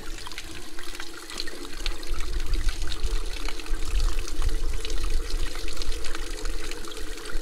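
Hose water running steadily through the cylinder head of a 1943 H tractor engine and pouring out of it, flushing out rust after an Evaporust soak.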